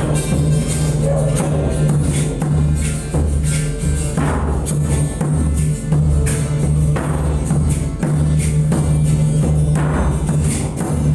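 Didgeridoo drone pulsing in a steady rhythm, played with drum strikes and high jingling percussion.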